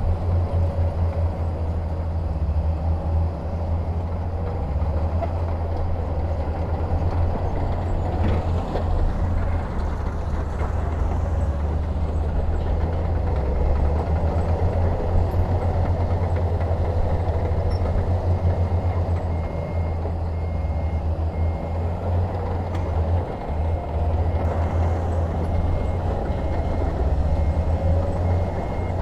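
Heavy diesel earthmoving machinery running with a deep, continuous rumble that rises and falls slightly. Faint, evenly spaced beeping joins about two-thirds of the way through.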